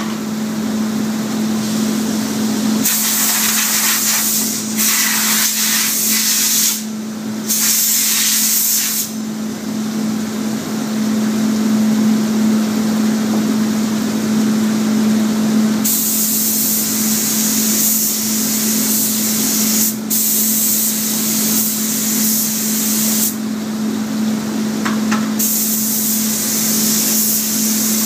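Compressed-air spray gun spraying a primer coat in several bursts of hiss, the longest lasting about seven seconds, over a steady low hum.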